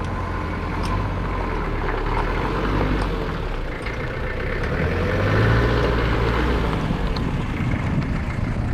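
Farm tractor's engine running steadily while plowing, growing louder about halfway through.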